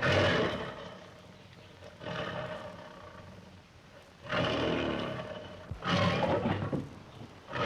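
Lion roaring and growling in a series of calls: a loud one at the start that fades over about a second, a weaker one about two seconds in, and two long, loud ones from about four seconds in.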